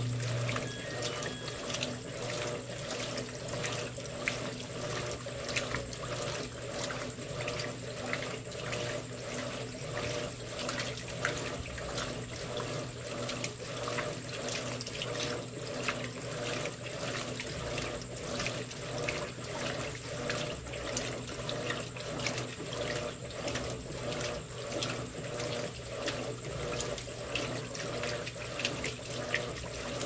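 Electrolux top-load washing machine agitating a load of bed sheets in water on turbo agitation: rhythmic sloshing and splashing over a steady low motor hum.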